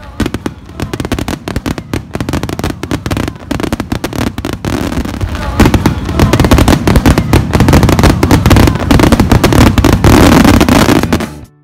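Aerial fireworks going off in rapid succession, a dense run of crackling and bangs. It grows thicker and louder about five seconds in and stops suddenly near the end.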